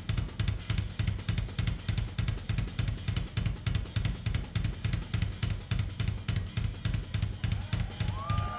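Drum kit solo: a fast, even run of strokes, about five a second, with bass drum and cymbals hit together on each. Near the end a held, wavering high tone comes in over the drums.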